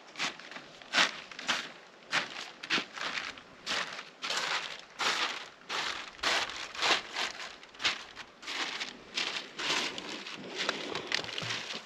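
Plastic film lining a foundation pit crinkling and rustling under footsteps, in short, irregular crackling scrunches roughly two a second.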